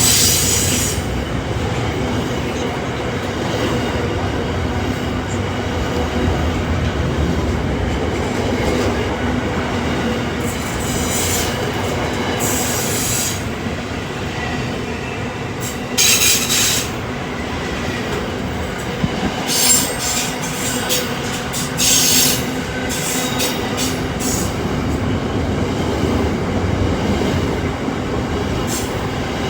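A train rolling through a station: a steady rumble of wheels on rail, broken several times by short high-pitched bursts of wheel squeal.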